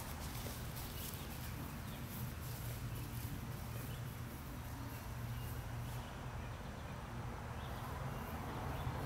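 Faint outdoor background on open lawn: a steady low rumble under a light hiss, with footsteps in grass moving away during the first seconds.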